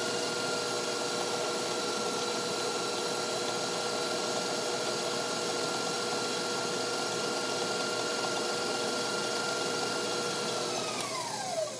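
Electric stand mixer running at a steady speed, its beater creaming butter and sugar in a steel bowl, with a steady motor whine. Near the end it is switched off and the whine falls in pitch as the motor winds down.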